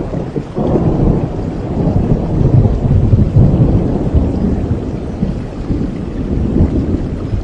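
Thunder rolling over steady rain: a low rumble that swells about half a second in, is loudest a couple of seconds later, then slowly fades.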